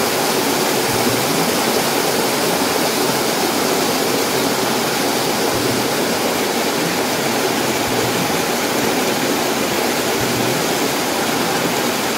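Small waterfall pouring between rock boulders, heard close up: a steady, unbroken rush of water.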